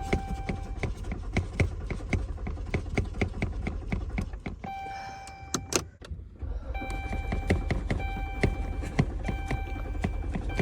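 Car engine being cranked by the starter without catching: a steady, rhythmic churning at about three to four beats a second. The cranking fades and stops briefly about six seconds in, then starts again, with a repeated beeping tone over it.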